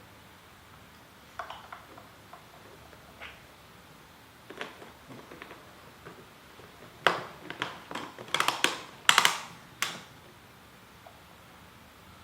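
Scattered sharp plastic clicks and knocks from handling the oil bottle and the chainsaw's bar oil tank cap, with a dense run of loud clicks between about seven and ten seconds in.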